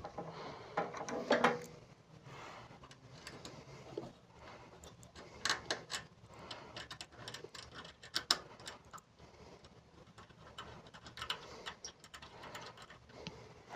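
Faint, irregular small clicks and scrapes of a screwdriver working small metal screws, as the printer's M3 lockdown screws are driven back in.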